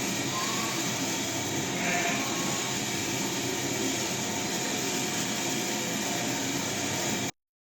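Steady rushing wind noise on the microphone out in the open field, cutting off abruptly near the end.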